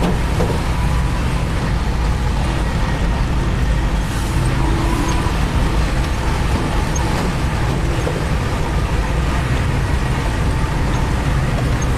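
Diesel engine of heavy construction machinery running steadily, a continuous low rumble.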